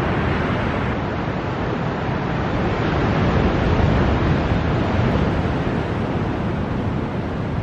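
Wind buffeting the microphone: a steady, rushing noise that rumbles heavily in the low end.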